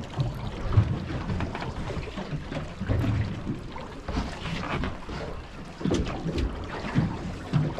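Wind buffeting the microphone aboard a small boat on open water, in irregular low gusts.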